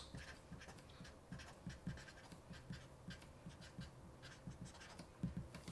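Marker pen writing on paper: a quick run of faint, short scratching strokes.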